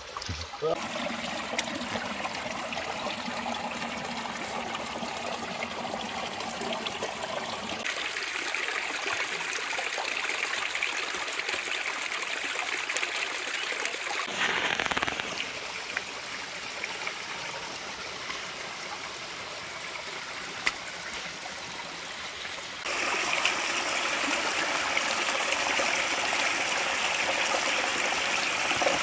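Shallow rocky stream running and trickling over stones. The water sound shifts abruptly a few times and is loudest for the last few seconds.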